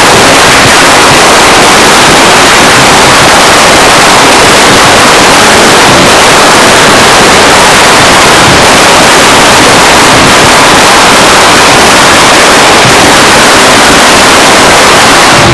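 A long hanging string of Chinese firecrackers going off in one unbroken, dense crackle, very loud throughout.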